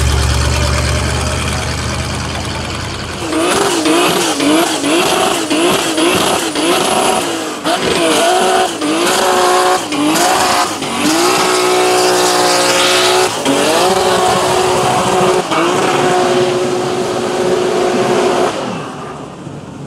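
V8 muscle car engine, starting with a deep low rumble that fades. About three seconds in it is revved hard, the pitch jumping up and down about twice a second. It is then held at high revs in three long pulls before cutting off near the end.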